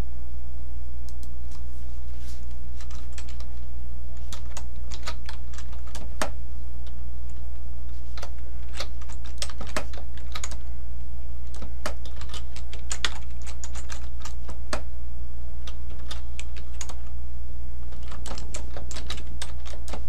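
Typing on a computer keyboard: irregular runs of keystroke clicks with short pauses between words, over a steady low hum.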